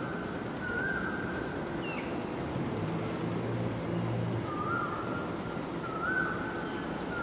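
A bird's short whistled note, rising then held level, repeated several times at uneven intervals over steady background noise. A brief high falling chirp comes about two seconds in, and a faint low hum runs through the middle.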